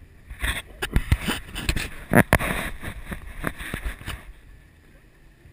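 A quick run of knocks and clatter from things being handled, starting about half a second in and dying away about four seconds in.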